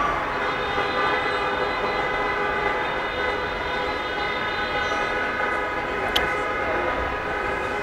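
A steady, held chord of several tones, like a horn or a synthesiser pad, with a single sharp click about six seconds in.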